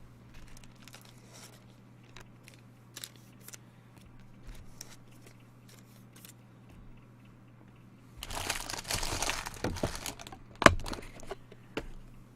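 Foil wrapper of a trading card pack crinkling and tearing open for about two seconds, after several seconds of faint scattered clicks, with one sharp knock just after.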